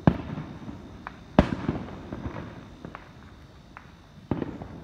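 Fireworks going off: three loud bangs, one near the start, one about a second and a half in, which is the loudest, and one near the end. A quick run of smaller pops follows the second bang, and a few fainter pops fall between the bangs.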